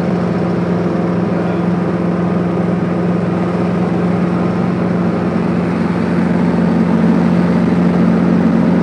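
Helicopter in flight heard from inside the cabin: a steady drone of engine and rotor with a strong low hum, growing slightly louder about six seconds in.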